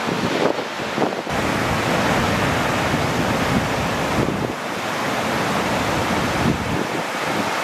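Ocean surf breaking and washing over a reef, a steady rushing wash with wind buffeting the microphone; the sound grows fuller and heavier about a second in.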